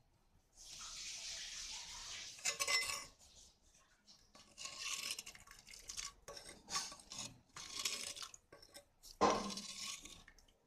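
Steel ladle stirring and scooping thick tomato gravy in a pot: irregular scrapes and clinks of metal against the pot, with a louder knock near the end.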